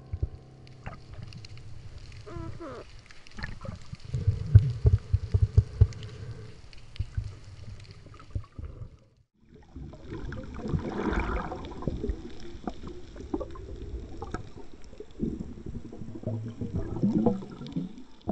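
Underwater sound as heard through a diving camera's housing: water rushing and bubbling around a spearfisher, with a run of low knocks and thumps about four to six seconds in. The sound drops out briefly about nine seconds in, then the water noise and scattered knocks return.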